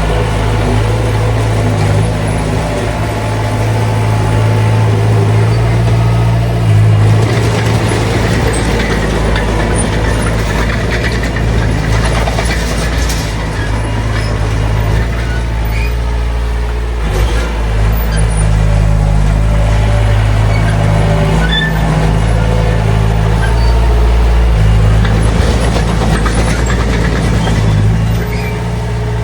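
Heavy diesel engines of earth-moving machines running hard under load, the engine note shifting in strength several times during a pull to free a bulldozer stuck in mud.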